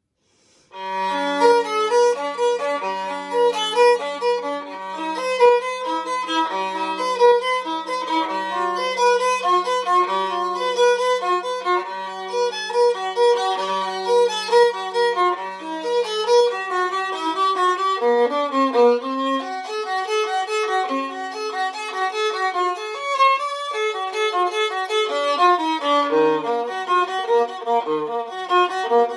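Antique 15.5-inch viola labelled Antonius Stradivarius, bowed solo. It plays a melody over a held low drone note for about the first eighteen seconds, then moving lines that dip to its lowest notes near the end.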